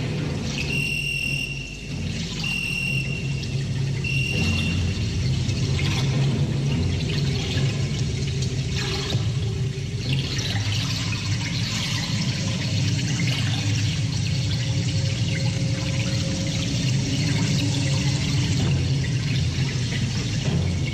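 Loud live rock band heard through a rough concert recording: a dense, distorted wash of guitar and bass with a steady low drone. A short, high whistle-like tone sounds three times in the first five seconds.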